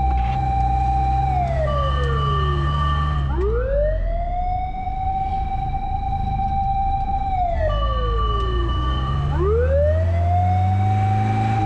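Fire truck siren wailing. Its pitch rises slowly, holds high for a few seconds, then falls away, and the cycle repeats about every six seconds. Underneath runs the low, steady sound of the truck's engine, and a second, steadier higher tone comes in briefly as each wail falls.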